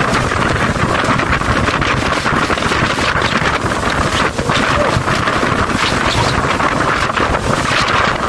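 Steady rush of wind buffeting the microphone aboard a small fishing boat under way, with the boat's engine and the water beneath it.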